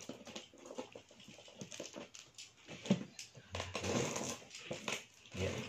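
A taped cardboard parcel being opened by hand: packing tape scraped and picked at with a small tool, with crackling rustles and small knocks as the box is handled. The scraping gets louder and denser from about three and a half seconds in.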